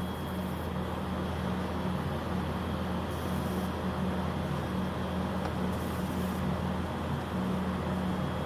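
Galvo-head laser engraver with a 30-watt air-cooled metal tube running an engraving job: a steady mechanical hum with a low buzz that keeps cutting in and out, and a faint steady high whine.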